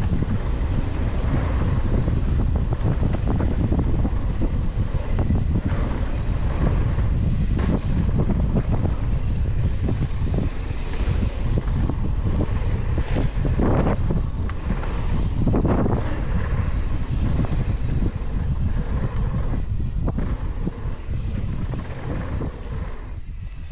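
Wind buffeting the microphone of a mountain biker's action camera during a fast descent of a dirt trail, over the tyres rolling on dirt and the bike rattling over bumps. Two louder swells come about 14 and 16 seconds in, and it eases off near the end.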